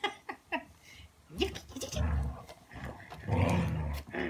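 Dogs play-growling as they tussle over a toy, in low growls, the longest and loudest near the end, with a few short sharp sounds right at the start.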